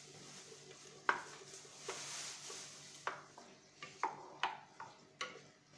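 Wooden spoon knocking and scraping against the rim and inside of a clay cooking pot, a string of sharp irregular knocks, as tomato paste is stirred into the pot's frying contents, with a soft sizzle beneath.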